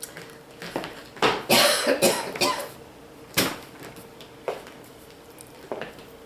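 Paper handling: a glossy magazine rustling as it is closed and moved, then slapped down on a table, followed by a few light knocks.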